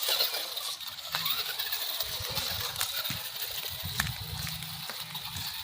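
Toy remote-control monster truck driving over rocky ground: a steady high whine from its small electric motor, with uneven rattling and sharp clicks from the wheels and body on the stones.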